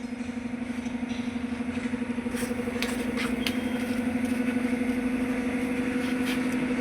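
Diesel truck engine running at a steady idle with an even, fast pulsing beat, growing gradually louder.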